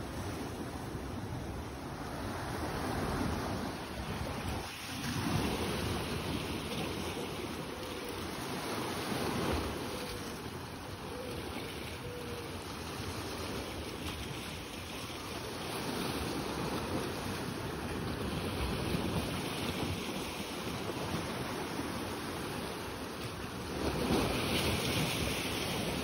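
Sea waves washing against the shore, with wind on the microphone; the surf swells and eases every few seconds, loudest near the end.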